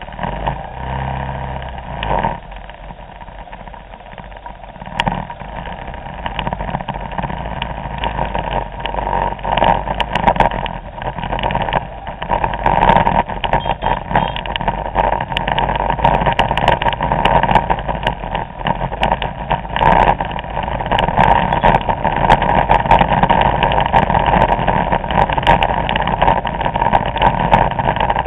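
Vespa scooter engines in a large column, idling at first, then rising in level as the scooters ride off together on a wet road.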